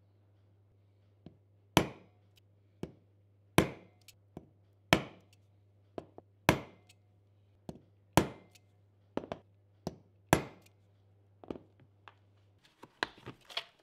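Hammer striking a steel number punch to stamp digits into a thin metal nameplate: about seven sharp blows, roughly one every one and a half to two seconds, with lighter taps between, then a quick run of small clicks near the end.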